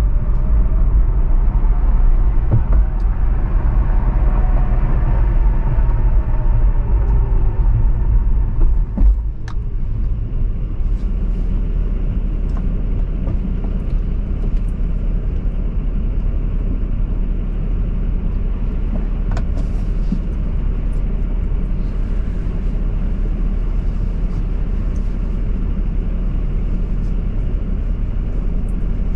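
Car driving on city streets: a steady low rumble of engine and tyre noise, which eases off a little about nine seconds in and then stays even.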